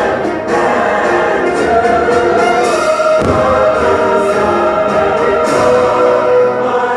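Choir singing with an orchestra: a show soundtrack of sustained, swelling choral music.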